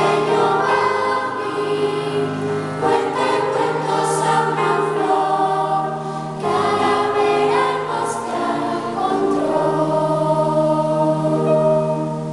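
Children's choir singing a song with keyboard accompaniment.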